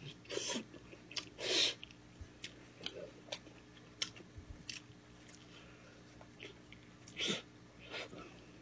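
A person eating gamjatang (Korean pork bone soup): chewing and biting, with scattered sharp clicks and louder mouth noises about a second and a half in and again about seven seconds in.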